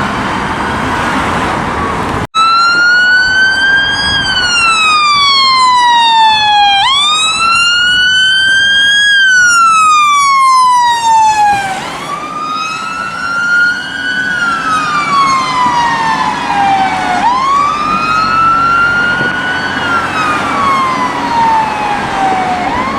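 Fire engine siren on a slow wail, its pitch rising quickly then falling slowly about once every five seconds, as the appliance answers a call. About two seconds in the sound cuts and the siren comes back louder and closer.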